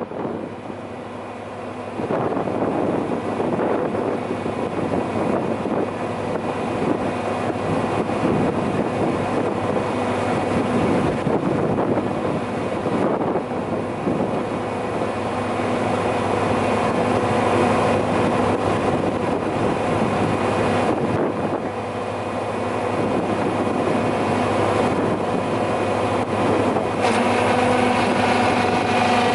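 PROTECHNIKA PBH-100 briquetting press running: a steady machine hum and whine with a rushing rustle as the hopper's stirring arm sweeps through wood chips and sawdust. A little quieter for the first two seconds, then steady.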